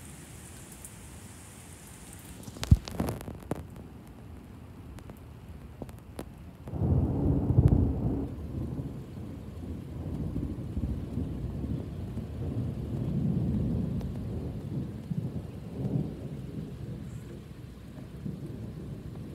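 Thunder over a steady hiss of rain. A sharp crack comes about three seconds in. About seven seconds in, a loud low rumble breaks out and then keeps rolling, rising and falling, to the end.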